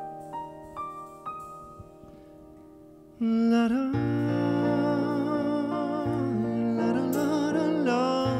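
Live band music: for the first three seconds a few soft single notes ring out and fade, then the band comes in suddenly and louder with sustained chords, a bass line and a wordless, wavering hummed vocal melody.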